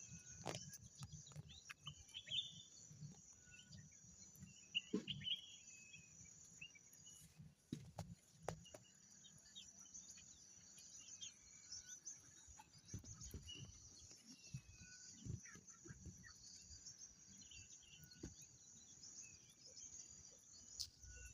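Faint outdoor ambience: scattered short bird chirps and calls over a steady high hiss, with a few soft knocks.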